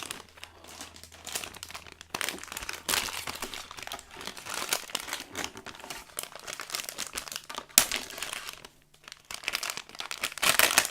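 Blind-bag toy packaging being torn open and crinkled by hand: irregular crackling, with a sharp snap about two thirds of the way in and a burst of louder crinkling near the end.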